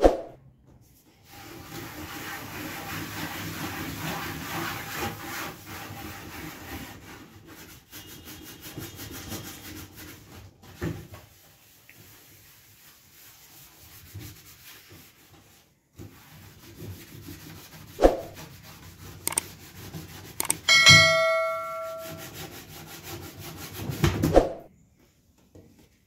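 Green scouring pad scrubbing the plastic top of a Whirlpool twin-tub washing machine: rough rubbing strokes that go on for most of the time, easing off for a few seconds in the middle. A couple of sharp knocks and a short ringing ding come near the end.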